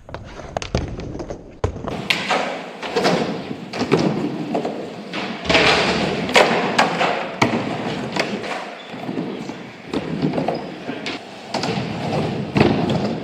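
Skateboard rolling over skatepark ramps with a steady rumble, broken by repeated clacks and thuds as the board hits and lands on the ramps.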